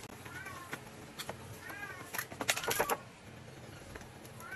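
A spoon clinking and scraping against a peanut butter jar and a saucepan, loudest in a quick cluster of clicks about two and a half seconds in. Three short rising-and-falling animal cries sound in the background.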